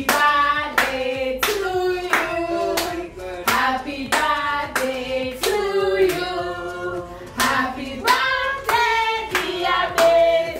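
A small group of women singing together while clapping their hands in a steady rhythm, about two claps a second, as a birthday song.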